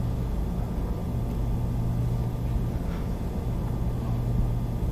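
Steady low hum and rumble of a lecture room's background noise, with no speech.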